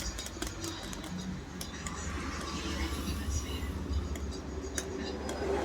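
Indistinct background voices over a steady low hum, with a few light clicks scattered through.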